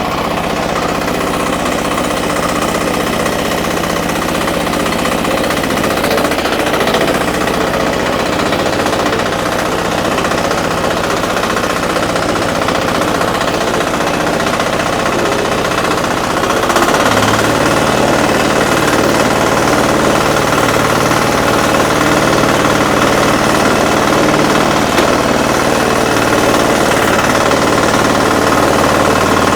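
Diesel engine of a 9 HP four-wheel power weeder running steadily with a hard, knocking diesel clatter. About 17 seconds in, the engine note changes and gets slightly louder.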